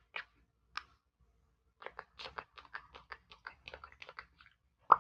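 Wet ASMR mouth sounds: a few clicks, then a quick run of clicks and smacks through the middle, and one louder click near the end.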